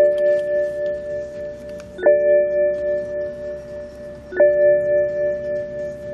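BMW 730d's cabin warning gong chiming repeatedly: three strikes about two and a third seconds apart, each a bell-like chord that rings out and fades.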